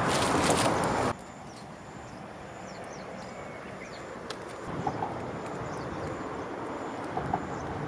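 Outdoor background noise: a loud steady rush that cuts off abruptly about a second in, then a quieter background with a few faint bird chirps and small clicks.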